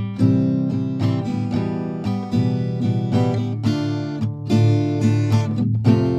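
Acoustic guitar music, strummed and plucked, played back through a 15-inch portable Bluetooth party speaker under demonstration.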